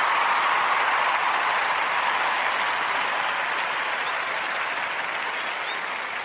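Crowd applauding, slowly dying away.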